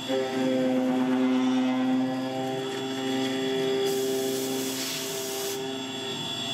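CNC gantry mill cutting an aluminium pocket with a 3/8-inch two-flute end mill under coolant spray, a steady mix of spindle and cutting tones. A hiss joins in about four seconds in and lasts about a second and a half.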